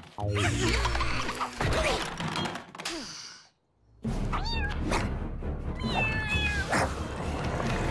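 Cartoon kitten meowing several times, with a short break of silence about three and a half seconds in and a longer, slowly falling meow near the end.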